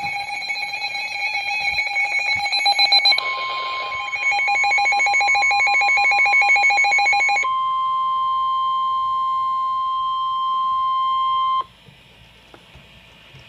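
Weather radio alert tones for a severe thunderstorm warning. A rapidly pulsing electronic alarm beep is joined about three seconds in by the steady 1050 Hz NOAA Weather Radio warning alarm tone. The alarm tone then plays alone and cuts off suddenly a couple of seconds before the end.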